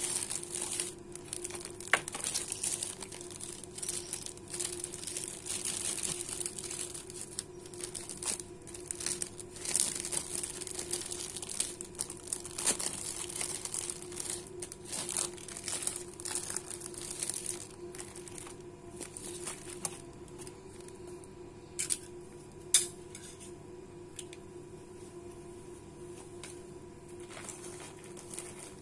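Clear plastic bags crinkling and rustling in irregular bursts as sandwiches and boxed drinks are handled and packed into them, with one sharper tap about two-thirds of the way through.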